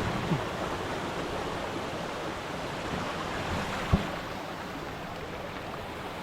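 Steady rush of stream water flowing over rocks, with a single short knock about four seconds in.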